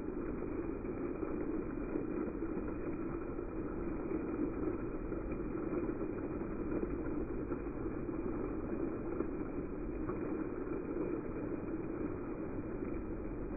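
Water jets of a ground-level dancing fountain spraying and splashing onto wet paving, a steady rushing noise.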